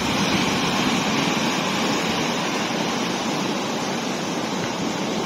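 A river in spate rushing and churning in a steady roar of white water, swollen by heavy rain, with the rain itself falling over it.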